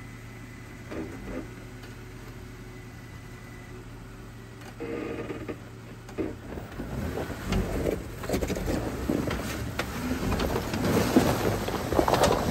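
Jeep Wrangler Rubicon crawling slowly over rocks and gravel in four-wheel low, its engine running with a steady low hum. About halfway through, crunching and popping of the tyres on loose stones starts and grows louder as it comes close, loudest near the end.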